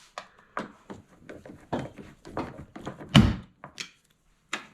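A string of clicks and knocks from a Ford truck door and its latch, with one heavy thunk about three seconds in as the door is pushed shut. The latch is not yet tightened enough to catch.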